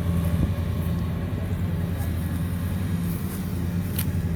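Kubota DC-105X combine harvester's diesel engine and threshing machinery running steadily under load while cutting rice: a continuous low drone, with a few sharp clicks near the end.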